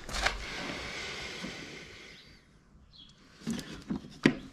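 A rushing handling noise for about two seconds, then three sharp clicks near the end as metal screwdriver bits are picked through in a plastic bit-and-socket case.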